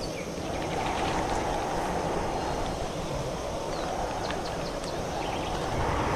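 Strong wind blowing across the microphone: a dense rushing noise that swells and eases every couple of seconds, with a few faint high ticks.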